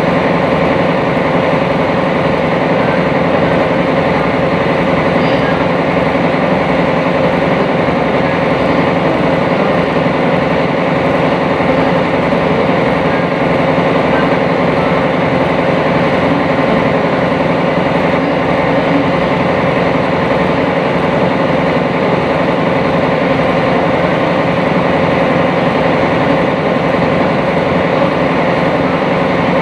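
Sightseeing cruise boat's engine running steadily underway, heard on board: a constant loud hum with a few held tones over a rushing noise.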